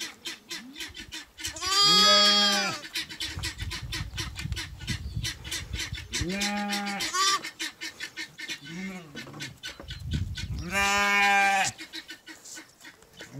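Sheep bleating: three long, even bleats, each about a second long, a few seconds apart.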